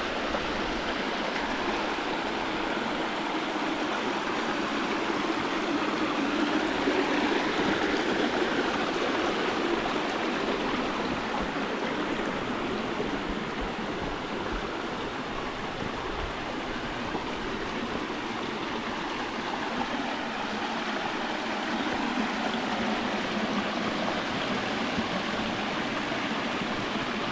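Creek water rushing steadily over rocks close by, a continuous splashing wash that swells slightly a few times.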